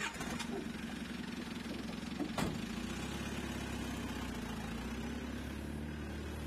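Military SUV engine idling steadily, with a car door slamming shut about two and a half seconds in.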